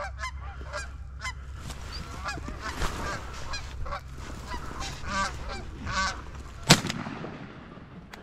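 Geese honking repeatedly overhead, then a single loud shotgun blast about two-thirds of the way through as a low-flying goose is shot at.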